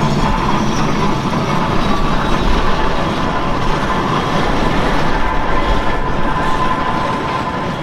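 Steam traction engine running across a grass field, its steady working noise mixed with irregular wind rumble on the microphone.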